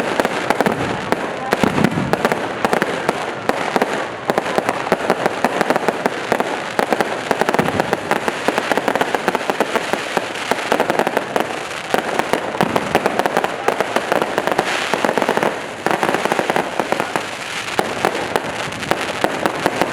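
Fireworks going off: many rapid, sharp bangs and pops that run together almost without a break.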